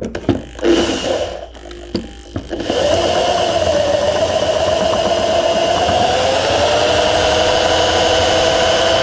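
A few clicks and knocks, then from about three seconds in an electric drill runs steadily, boring through a metal bar. Its motor whine dips a little in pitch partway through and then holds.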